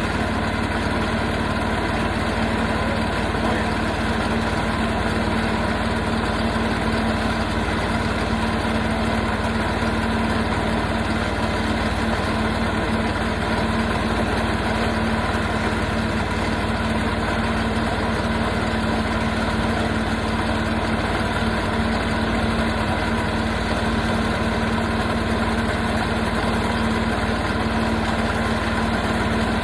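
Portable sawmill's engine running steadily at an even pitch, with no change in speed or load.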